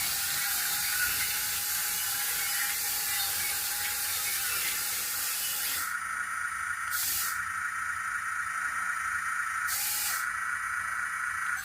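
A 1/64-scale RC toy excavator's built-in sound effects playing through its small speaker: a long hiss for the first six seconds, then two short hisses about three seconds apart, over a steady high whine.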